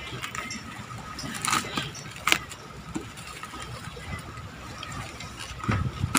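Black plastic parcel wrapping being pulled and torn open by hand, with scattered crinkles and crackles.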